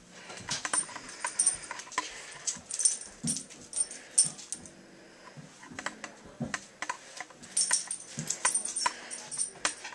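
A dog moving about, its collar tags jingling in quick, irregular clinks.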